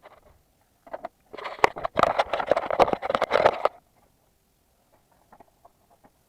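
Hand tools or parts being handled during spark plug work: a few scattered clicks, then about two seconds of dense clattering and scraping, then a few faint clicks.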